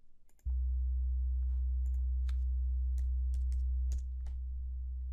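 A steady 63 Hz sine test tone from a tone generator, stepped down by 6 dB about four seconds in, which demonstrates how much quieter one doubling of wall mass makes a low frequency. Faint clicking sounds over the tone.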